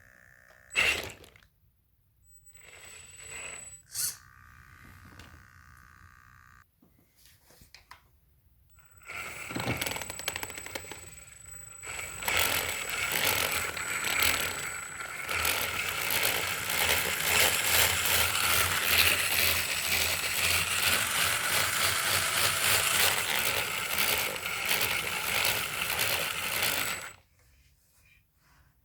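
Brand-new FTX Kanyon RC crawler's drivetrain running with a grinding, rattling noise from the differentials, louder from the front one, on a car just out of the box. A thin high whine runs with it. After a few short clicks and whirrs, the grinding starts about a third of the way in and cuts off suddenly near the end.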